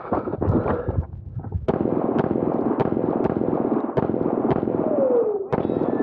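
Pistol shots fired in quick strings, about a dozen in all, with a pause of about a second after the first few.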